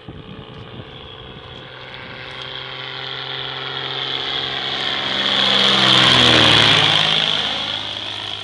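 Piper Pawnee PA-25-260 crop-dusting plane flying low overhead, its six-cylinder Lycoming engine and propeller growing louder to a peak about six seconds in, then dropping in pitch as it passes and draws away.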